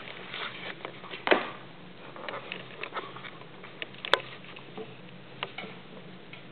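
Somali kitten playing with a fishing-rod wand toy: irregular patter of paws and scuffs of the toy, with a louder thump about a second in and a sharp click around four seconds.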